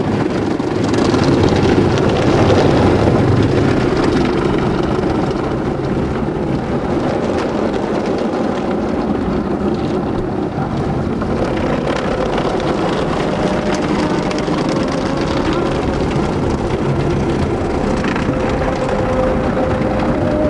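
Automatic car wash heard from inside the car: water jets and spray rushing over the windscreen in a loud, steady wash of noise, with a faint machine tone joining about halfway through.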